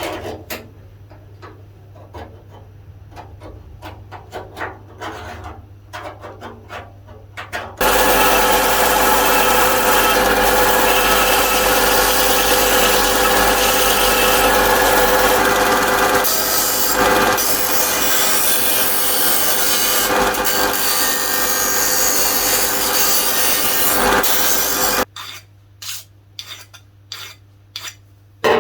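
A power grinder running steadily against the car door's sheet steel for about seventeen seconds, starting about eight seconds in and cutting off suddenly. Before and after it come light scraping and clicks of metal and tools being handled.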